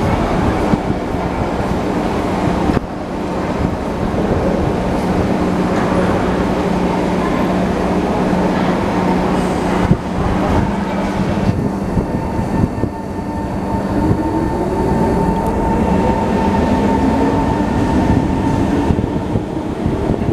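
SMRT East West Line metro train pulling out of a station: wheels rumbling on the track, then the traction motors whining in several tones that rise in pitch from about halfway through as it gathers speed.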